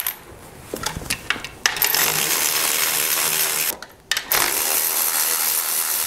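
Milwaukee cordless electric ratchet backing out the alternator's 15 mm mounting bolts. A few clicks as it goes onto the bolt, then two steady runs of the motor, about two and three seconds long, with a short pause between them.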